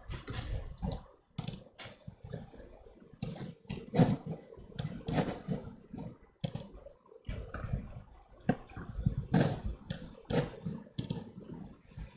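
Typing on a computer keyboard: irregular keystrokes and clicks while code is edited.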